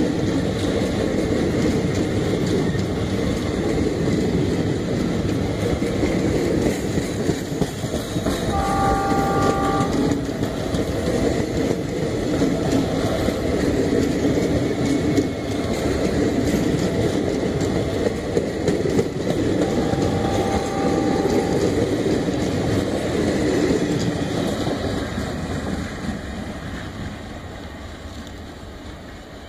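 Blue ICF passenger coaches of an Indian Railways express running past at speed: a steady rumble and clatter of wheels on the rails that fades near the end as the last coach draws away. A distant train horn sounds twice, a short blast about nine seconds in and a fainter one about twenty seconds in.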